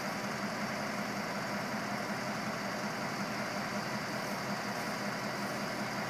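Ford LN8000 hooklift truck's engine idling steadily.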